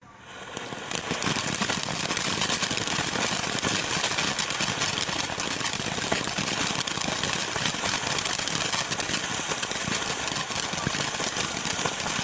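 TopGun Mr. Cameraman firework fountain catching and spraying: a loud, steady hiss with dense crackling that builds up in the first second.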